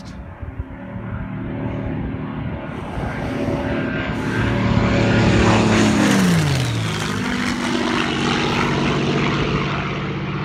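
Supermarine Spitfire making a low, fast pass overhead, its V12 piston engine and propeller growing louder to a peak about five or six seconds in. As it passes, the engine note drops sharply in pitch and the sound eases off as it flies away.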